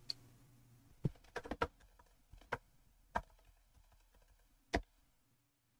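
Computer keyboard being typed on: about half a dozen faint, irregular keystrokes, a few in quick succession, the last one near the end.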